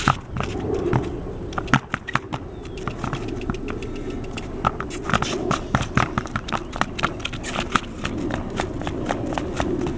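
A horse's hooves striking a concrete pad in sharp clicks. A few scattered strikes come first, then a fast, even run of hoofbeats from about five seconds in as the horse moves off around the lunge pole.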